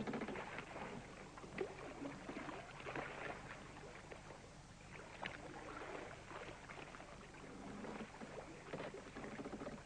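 Faint water lapping against a small boat's hull, with scattered small irregular knocks and rustles.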